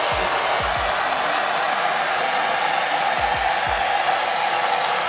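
Gas torch flame burning with a steady hiss, heating the outside of a differential carrier's bushing sleeve to expand the metal so the sleeve can be pushed out.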